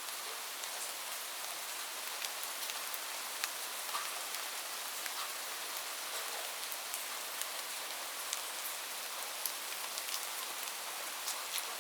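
Light rain falling steadily: an even hiss with many separate drops ticking at irregular intervals.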